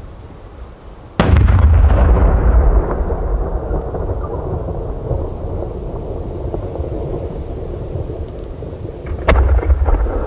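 Aerial fireworks shells bursting: a sharp bang about a second in, followed by a long low rumble that slowly dies away, then a second bang near the end.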